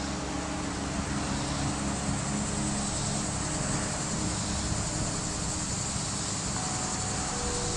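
Steady rushing noise with faint sustained drone tones of ambient music over it.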